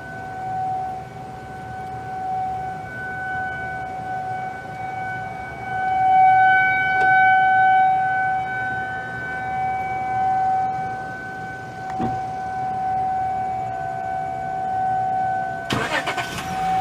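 Federal Signal 2001-SRN outdoor warning sirens sounding a steady alert tone. The pitch holds steady while the loudness swells and fades. A short burst of rushing noise comes near the end.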